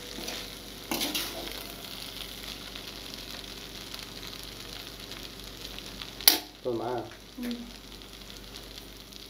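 Wheat noodles and vegetables sizzling in a hot kadai as they are stir-fried with a metal slotted spatula, a steady hiss throughout. A single sharp metallic clack of the spatula against the pan comes about six seconds in.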